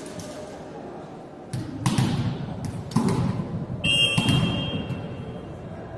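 A volleyball being struck and thudding on the court several times in quick rally play, with a referee's whistle blowing for about a second near the middle.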